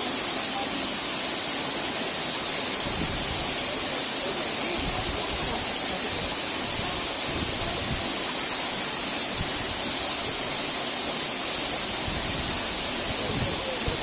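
Steady rushing hiss of a waterfall, unbroken and even, with a few short low thumps here and there.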